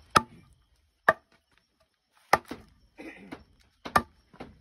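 Heavy knife chopping raw game meat on a wooden block: five sharp strikes at uneven intervals.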